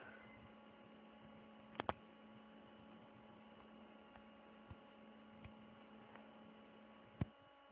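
Near silence: a faint steady electrical hum, with a few soft clicks, two close together about two seconds in and one near the end.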